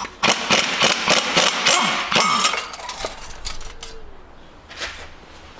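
Impact wrench hammering rapidly for about two and a half seconds as it spins out the last exhaust-manifold bolt, followed by a few lighter metal knocks and clinks as the manifold is worked loose.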